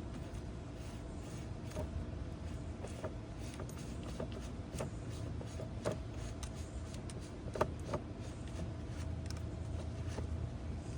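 Scattered light clicks and taps of a plastic coolant reservoir cap being unscrewed and a new one fitted, over a steady low rumble.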